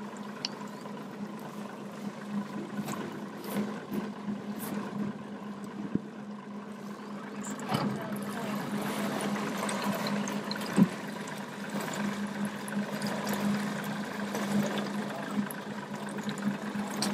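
Boat motor running at low speed with a steady low hum, and water splashing along the aluminium hull, louder from about halfway through. A sharp knock against the hull a little before eleven seconds is the loudest sound.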